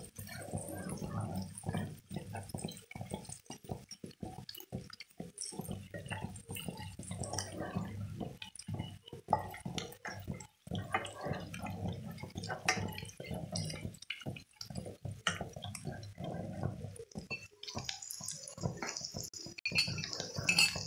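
Squid rings cooking in oil and spices in a steel pan, stirred with a wooden spoon: wet bubbling and spoon scraping with small irregular clicks. A higher hiss of sizzling comes in near the end.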